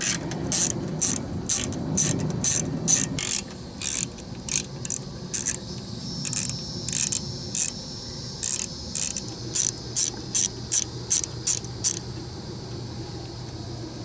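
Ratchet wrench clicking in short back-and-forth strokes, about two a second, that stop about twelve seconds in.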